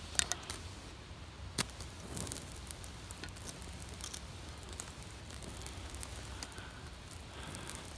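Fluffy plant-down tinder and small twigs catching fire, crackling with scattered sharp pops, the loudest about a second and a half in, over a soft steady hiss.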